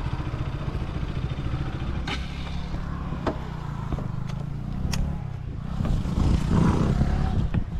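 Motorcycle engine idling steadily, with a few sharp clicks and clatter over it.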